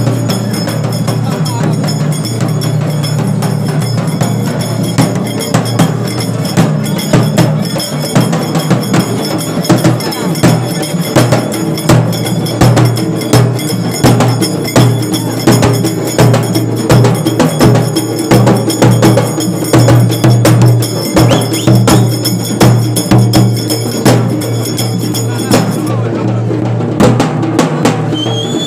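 Telangana street drumming: dappu frame drums and a large metal-shelled drum beaten hard with sticks in a fast, driving rhythm, loud and continuous, with crowd voices underneath.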